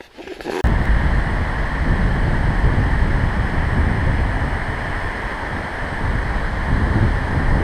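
Loud, steady rush of Vettisfossen waterfall's falling water, cutting in abruptly about half a second in.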